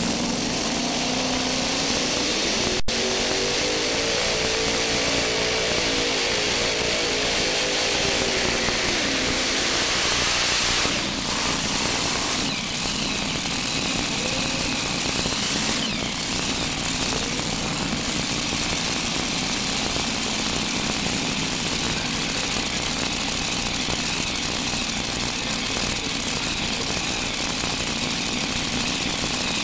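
Modified pulling tractor's engines running hard under load as it pulls the sled, their pitch climbing and wavering over the first several seconds, then a dense steady engine noise, a little quieter from about eleven seconds in.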